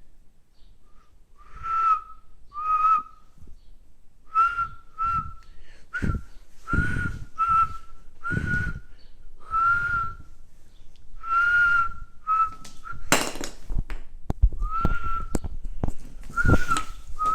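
Someone whistling a series of short, level notes, about a dozen of them at uneven gaps with breath audible on each, as a lure call. A sharp noise about 13 seconds in is the loudest single moment.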